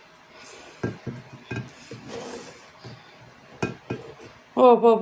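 Ceramic plates clinking and clattering as they are lifted off a stack and handled, with a few sharp separate knocks. Near the end a woman's voice starts a long, steady hum.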